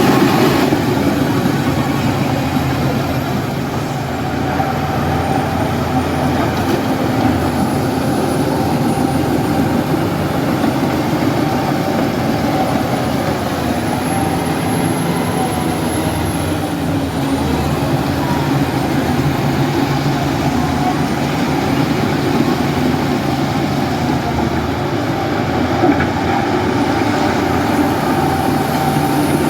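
Bulldozer's heavy diesel engine running steadily and loudly, its pitch shifting a little as the load changes.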